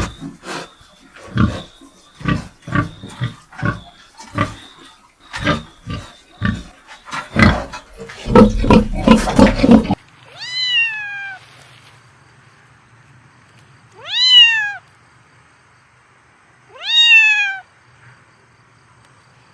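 A run of sudden knocks or thumps that come thicker and faster about eight seconds in, then a cat meowing three times, each meow a long call that rises and then falls in pitch, a few seconds apart.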